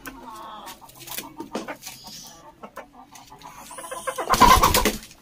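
Aseel chickens clucking, among small scratches and scuffles; about four seconds in comes a loud, rough scuffle lasting under a second, the loudest sound.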